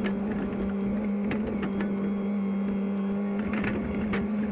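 Hitachi 50 mini excavator's engine running steadily at a constant pitch, with scattered sharp clanks and knocks.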